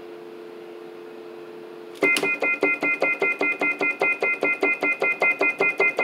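Yamaha YPG-235 keyboard on its sine-wave lead voice imitating telephone signals: a steady two-note chord like a dial tone, then about two seconds in a high four-note chord pulsed about five times a second, imitating the off-the-hook tone.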